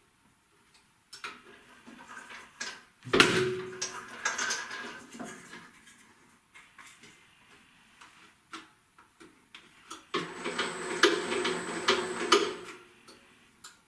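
Clicks and metal clunks from handling a Famag Grilletta IM 5S spiral dough mixer's tilting head and stainless steel bowl, with one loud clunk that rings briefly about three seconds in. Near the end comes about two seconds of denser rattling with a steady high whine.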